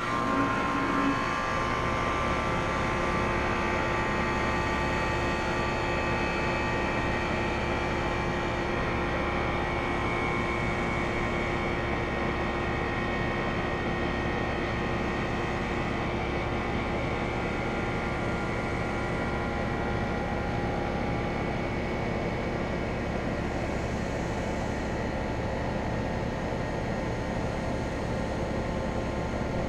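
2001 York 2.5-ton central air conditioner outdoor unit starting up: it comes on abruptly with a brief low hum in the first second, then runs steadily, a loud even hum with several steady tones over a rushing noise.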